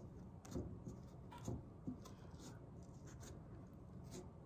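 Fingers pressing and rubbing burlap down onto the edge of a frame to set it in hot glue: a faint, scratchy rubbing with a few light ticks.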